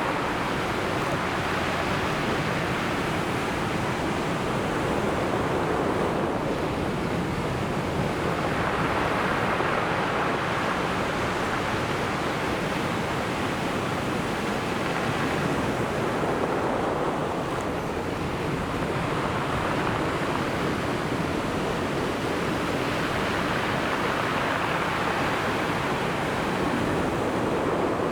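Sea waves breaking and washing on the shore, swelling about every eight to ten seconds over a steady rush of surf.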